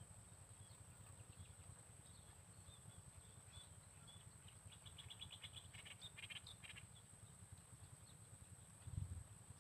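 Faint outdoor ambience: scattered small bird chirps, with a quick pulsing trill about five to seven seconds in, over a low rumble and a steady high insect-like hum.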